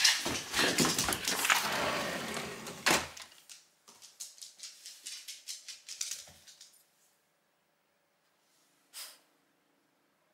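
Rapid clicking and pattering of a small Shiba Inu's claws and paws on wooden stairs and a wooden floor as it trots. The clicks are thick for about three seconds, then thin out into scattered light taps and stop, leaving near quiet with one short soft burst near the end.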